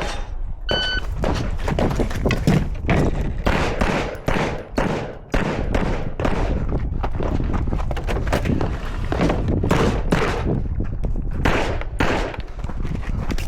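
An IDPA shot timer beeps once, and a competitor fires a long string of shots through a stage, some in quick pairs, with short pauses between strings.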